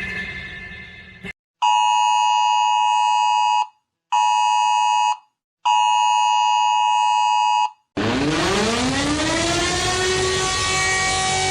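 Emergency alert attention tone: three bursts of a harsh, steady two-tone beep, about two seconds, one second and two seconds long, with short gaps between. About eight seconds in, a siren starts winding up, its pitch rising for a couple of seconds and then holding steady.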